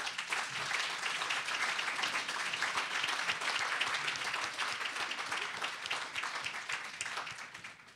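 Audience applauding: a dense patter of many hands clapping that fades out near the end.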